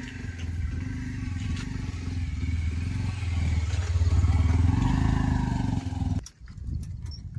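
Kubota A211N 21 HP compact tractor's three-cylinder diesel engine running as the tractor pulls away, getting louder for a couple of seconds, then cutting off suddenly about six seconds in.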